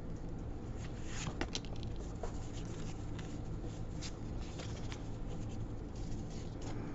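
Soft rustling, crinkling and small clicks of a Pokémon card booster pack being opened by hand and its cards handled, over a faint steady low hum.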